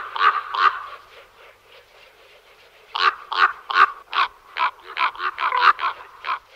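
Common raven (Corvus corax) calling: a few short croaks at the start, then after a pause of about two seconds a quick run of about a dozen croaks, roughly three a second.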